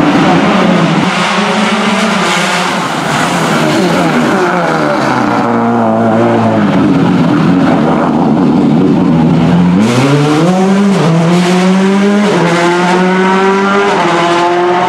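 Subaru Impreza WRC S14's turbocharged flat-four rally engine running loud with varying revs, settling low for a few seconds. About ten seconds in it accelerates hard away: the pitch climbs and drops back at each of three quick upshifts.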